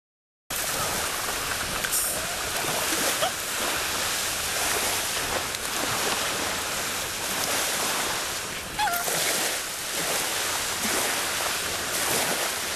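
Small sea waves breaking and washing onto a sandy shore: a steady rushing surf that starts abruptly about half a second in, with a faint short cry heard about nine seconds in.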